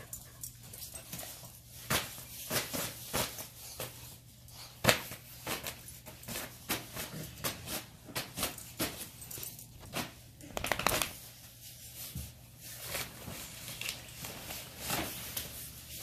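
Dogs nosing and brushing right against the microphone: irregular close-up rustling and sharp clicks, with a quick run of clicks about eleven seconds in.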